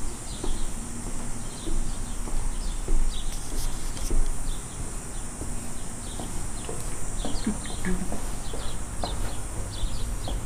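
Outdoor ambience: birds chirping in many short, scattered notes over a steady high-pitched drone typical of insects, with a low rumble beneath.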